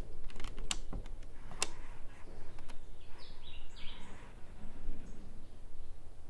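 Steady low rumble of background ambience, with a few sharp clicks in the first two seconds and three quick high chirps falling in pitch about three seconds in.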